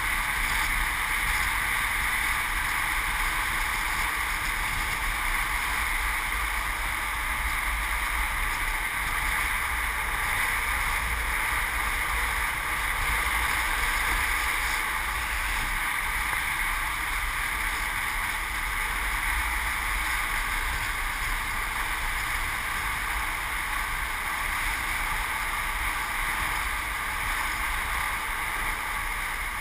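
Steady rushing noise of a downhill longboard ridden at speed: wind buffeting the camera microphone over the roll of urethane wheels on asphalt, with no change through the run.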